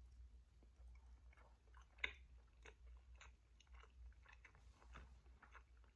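Faint chewing of a small bite of food, with soft mouth clicks scattered through it and one slightly sharper click about two seconds in.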